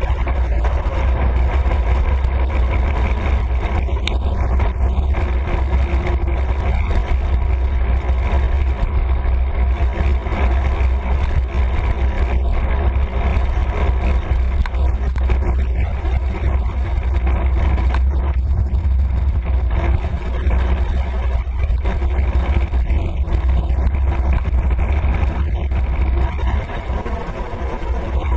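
Steady low wind rumble buffeting the microphone of a moving road-going camera, with road noise over it.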